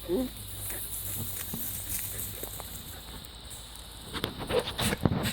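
A goat gives a short call with a bending pitch right at the start. A few seconds of low background follow, then a quick run of clicks and knocks near the end.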